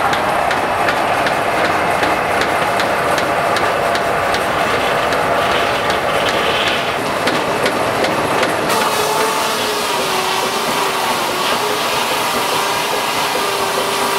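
Steam-powered sawmill machinery running: a loud, dense mechanical clatter with even clicks about three times a second. About nine seconds in the sound changes: the clicks stop and a steady, slightly wavering tone runs under the noise.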